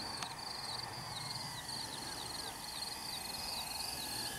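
Crickets chirping in the dark: short, high chirps repeating evenly about three times a second over a faint hiss.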